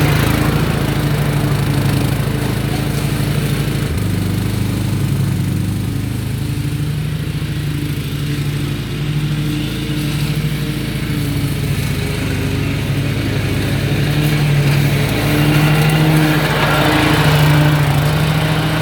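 Zero-turn riding lawnmower's engine running steadily while mowing, a little louder near the end.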